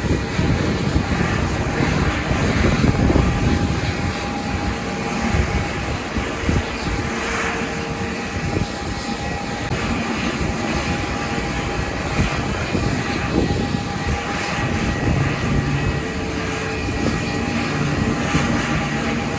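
Airbus A320neo's CFM LEAP-1A turbofan engines running with a steady jet rumble and faint whining tones, with strong wind buffeting the microphone.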